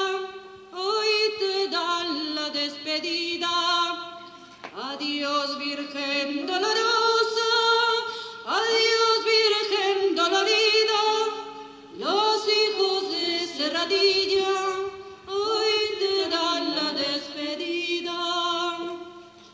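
A Holy Week saeta sung unaccompanied by a single voice. It moves in long, ornamented, wavering phrases of a few seconds each, with short breaks for breath between them, and dies away at the very end.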